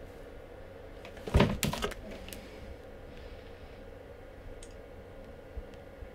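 A quick cluster of knocks and clicks, as of things handled on a desk, about a second and a half in, then a couple of faint ticks, over a steady low room hum.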